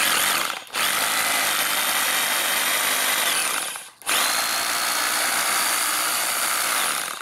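Würth 2 kg-class, 800-watt SDS hammer drill running with no load, its motor whining at full speed. It is run in three goes: a short burst, a longer run that winds down and stops about four seconds in, then it spins up again and runs on.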